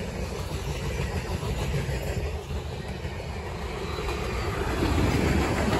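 Freight cars of a passing CSX mixed manifest train rolling by on the adjacent track: a steady rumble of steel wheels on rail, swelling slightly near the end.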